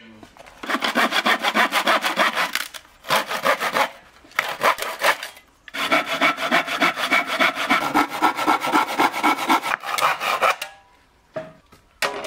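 Hand saw cutting through a weathered wooden plank, in quick back-and-forth strokes in three runs with short pauses between them. A sharp knock near the end.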